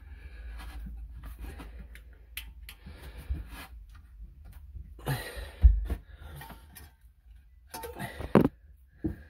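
A thin metal pick scraping and clicking in a metal water-line fitting on a Sea-Doo, in a run of small ticks and scratches. There are two louder knocks, one about halfway through and one near the end.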